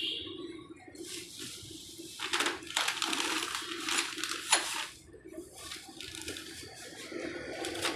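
Small metal parts clinking and scraping, several sharp clicks over a run of rustling noise, with a steady low hum underneath.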